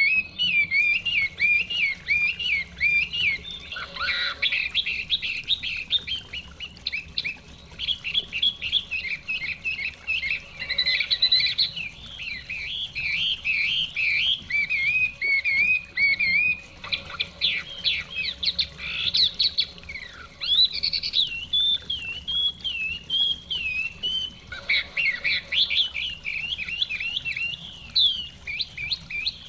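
Chinese hwamei singing a long run of rapid, varied warbled and whistled phrases, with only brief pauses.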